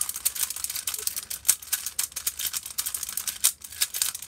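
Rubik's cube being turned fast by hand during a speedsolve: a rapid, irregular stream of plastic clicks and clacks from the layers.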